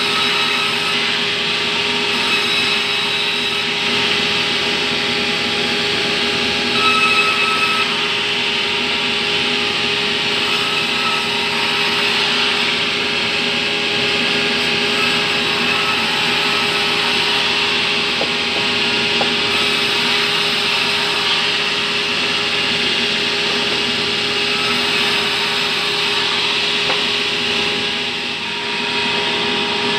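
Large band saw mill running steadily and ripping a plank of fibrous terap wood, a dense sawing noise over a steady motor hum.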